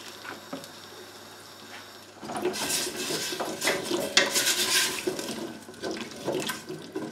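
A spoon stirring diced potatoes and stock in a stainless steel stockpot, scraping and clattering against the pot's sides and bottom, starting about two seconds in.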